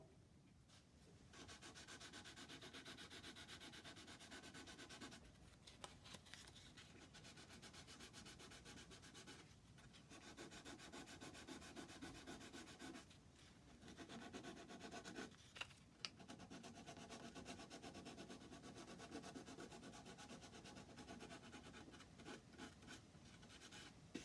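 Quick back-and-forth hand rubbing on the wooden clock case, in long bouts broken by short pauses.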